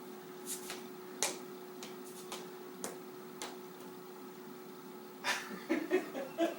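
A small ball being batted around on a hard floor during play with a cat: scattered light taps and clicks at irregular intervals over a faint steady hum, with a few short pitched sounds near the end.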